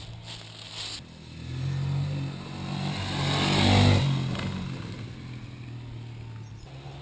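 A 125 cc trail motorcycle comes up a dirt track and passes close by about four seconds in. Its engine gets louder up to the pass, then fades as it moves away.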